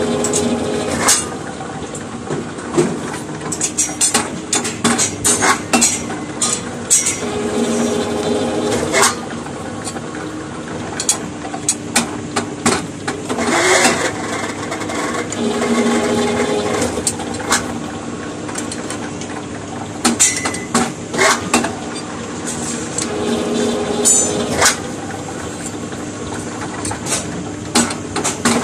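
Electric rebar bending machine at work: its motor hums in short spells, about every eight seconds, as the disc turns to bend ribbed rebar into stirrups, with frequent metallic clanks and clinks of the steel bars against the steel table and bending pins.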